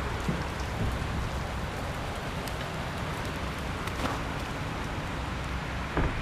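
Steady rain-like patter and hiss of meltwater dripping and running off ice, with a few faint ticks and a low steady hum underneath.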